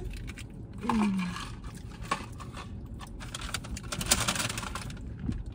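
A short hummed "mm" of enjoyment about a second in, then eating noises: a plastic spoon in a paper cup of mac and cheese, chewing, and a few small clicks and rustles.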